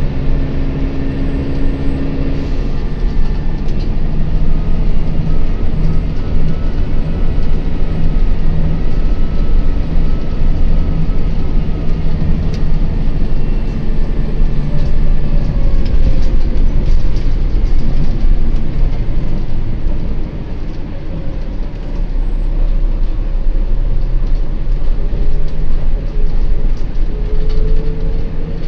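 Volvo B9TL double-decker bus under way, heard from the upper deck: a steady diesel engine drone with road noise and scattered short rattles from the body over a bumpy road.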